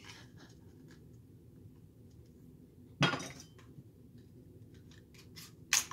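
Light clinks and taps of a thin metal blade and metal rings knocking against a small product box as it is handled for opening, with one sharp clink about three seconds in and another just before the end.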